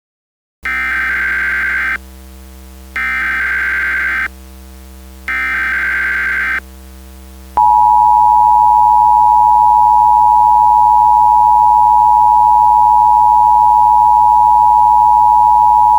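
Emergency Alert System tones: three short buzzing bursts of SAME header data, each about a second and a half long with short gaps between, then the steady two-tone attention signal, which starts about halfway through and holds. Together they mark the start of an emergency alert broadcast.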